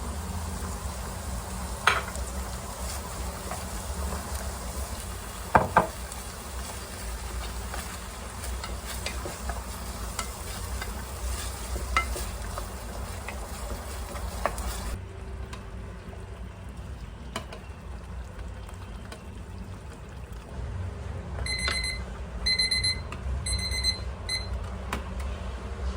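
Food sizzling in a frying pan, with a couple of sharp utensil knocks against the pan. After a cut about halfway, an appliance's electronic beeper sounds near the end in a few quick runs of short high beeps.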